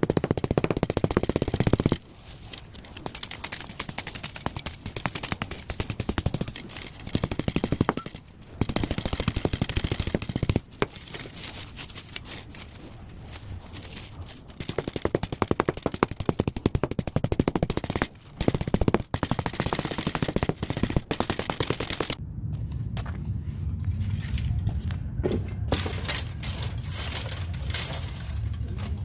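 Rapid, dense metallic rattling impacts in repeated bursts with short pauses between them, from an air-conditioner radiator being worked apart to strip its fins and free the copper tubing. The hits are softer near the end.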